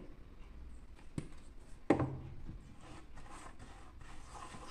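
A sharp knock about two seconds in, then a silicone spatula stirring a wet dough mix in a stainless steel bowl, with faint scrapes and light taps against the metal.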